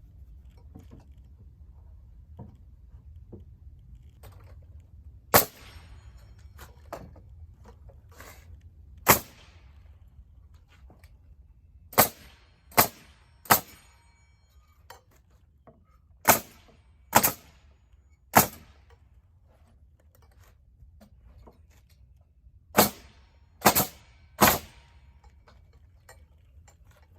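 Nails being driven into stair framing lumber: about eleven sharp cracks at irregular intervals, several in quick runs of three.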